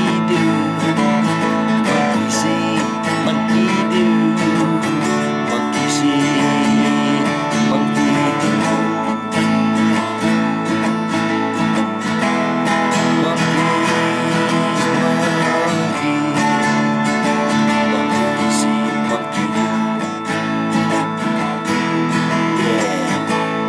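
Twelve-string acoustic guitar strummed steadily in chords.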